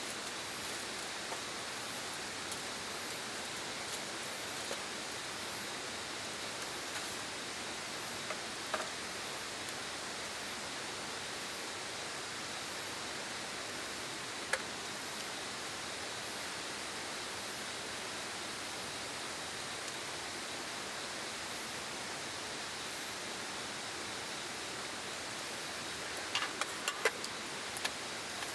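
A steady, even rushing noise, with a few light clicks and taps scattered through it and a short cluster of them near the end.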